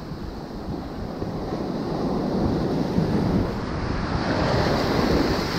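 Surf washing up a beach, swelling and easing, with wind buffeting the microphone.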